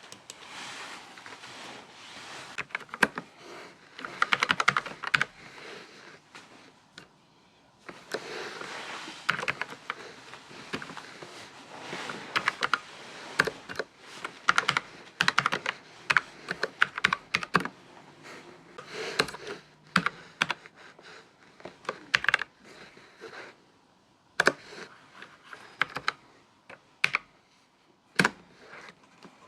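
Typing on a Redragon BS8772 wireless low-profile mechanical keyboard: runs of rapid key clicks in bursts with short pauses between.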